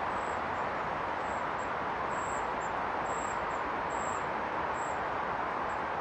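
Steady rushing of the River Clyde's flowing water, an even noise with no change in level. Faint, thin high calls of small birds come through a few times.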